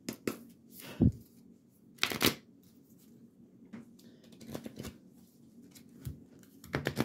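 A deck of oracle cards being shuffled by hand: a run of sharp card slaps and riffles, the loudest about one and two seconds in, then quieter, quicker ticks of cards.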